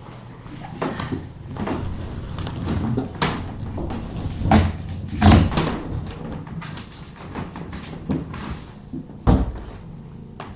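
Irregular knocks, clicks and rustling of things being handled and bumped in a room, with louder thumps about four and a half, five and a half, and nine seconds in.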